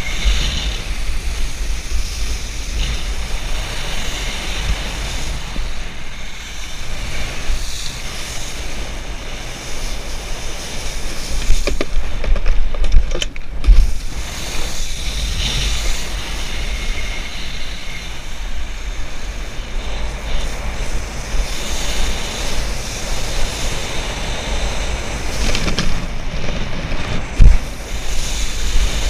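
Wind buffeting the microphone of a wearable camera, with the steady hiss and splash of a wakeboard cutting across lake water. The water noise swells as the board carves and throws spray, most strongly about halfway through and again near the end.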